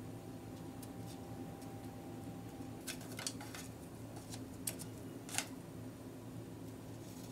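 Wooden chopsticks clicking lightly against a nonstick frying pan and the pancake as small pancake pieces are placed and nudged: a few clicks about three seconds in, then two sharper taps, the last the loudest. A steady low hum runs underneath.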